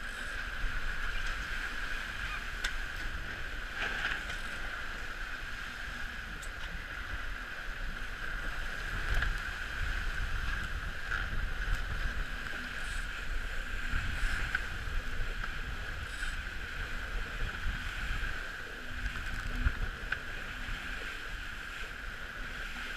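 Steady rush of water streaming past the hull of a sailing trimaran moving fast through chop, with wind rumbling on the microphone and now and then a small splash.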